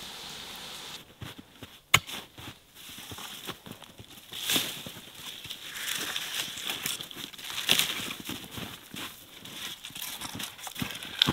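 A steady hiss stops about a second in. After it come footsteps crunching in deep snow, with scattered crackles and knocks and one sharp crack about two seconds in.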